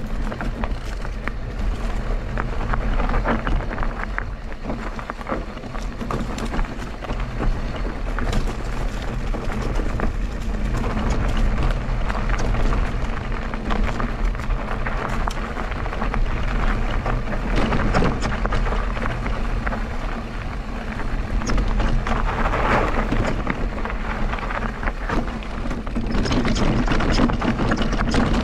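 Mondraker Crafty Carbon RR electric mountain bike riding a rough trail: tyres running over dirt and stones, with constant clicking and rattling from the bike and a steady wind rumble on the microphone.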